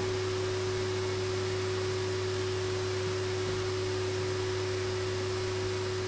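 Hoover A-Cubed canister vacuum cleaner running steadily: an even motor hum with one steady tone over a soft hiss of airflow.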